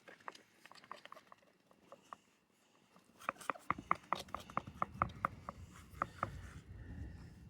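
Young puppies' paws and claws pattering about as a run of light, quick clicks, sparse at first and busiest from about three seconds in.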